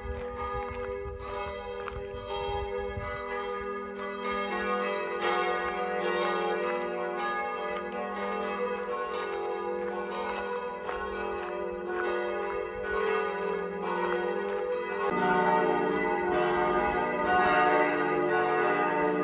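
Several bells ringing continuously, their sustained tones overlapping, with fresh strikes coming at a regular pace. About fifteen seconds in, the set of notes changes abruptly and grows louder.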